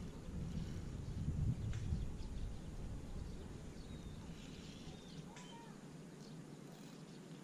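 Outdoor ambience: a low rumble, strongest in the first two seconds and then easing off, with a few faint bird calls about four to five and a half seconds in.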